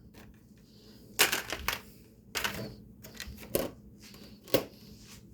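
About five sharp clicks and knocks a second or so apart, from objects being handled, set down or opened.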